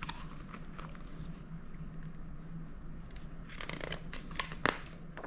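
Paper rustling and a few short crisp clicks about three and a half to four and a half seconds in, as a picture-book page is handled and turned, over a steady low hum.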